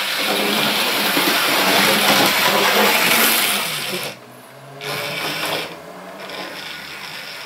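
An OO gauge model locomotive running on its track, its small electric motor and wheels making a steady whir. It cuts out briefly about four seconds in, picks up again, then runs on more quietly.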